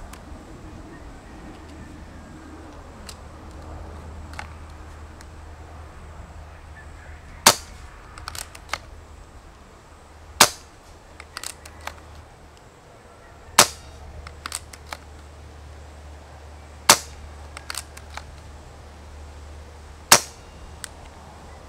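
Gamo Urban .22 PCP air rifle firing five shots through its Whisper Fusion moderator, about three seconds apart, each a sharp crack, with lighter clicks between the shots.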